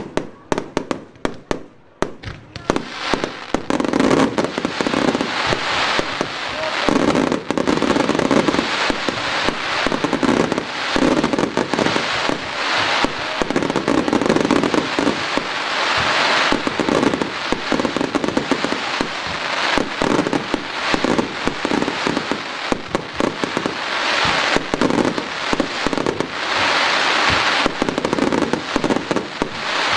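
Fireworks finale barrage: a few separate loud bangs, then from about two seconds in a dense, nonstop run of shell bursts and crackle.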